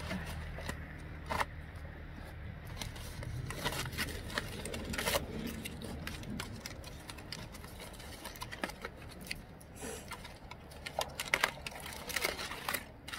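Aluminium foil crinkling and crackling as a foil packet is unfolded by hand, in irregular sharp crackles that bunch together in several spells.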